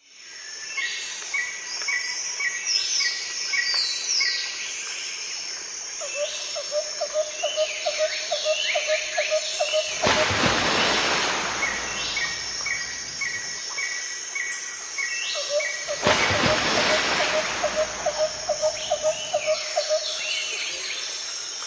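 Forest birds calling and singing, with runs of quick, evenly repeated chirps, over a steady high insect buzz. Two stretches of rushing noise about ten and sixteen seconds in.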